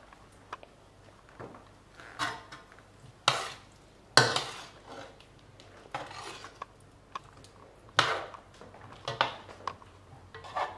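A cooking utensil knocking and scraping against a pan of curry in a string of separate clatters, the loudest about four and eight seconds in.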